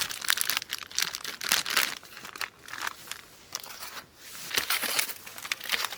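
Plastic MRE packaging crinkling and rustling as it is handled, in irregular crackly bursts.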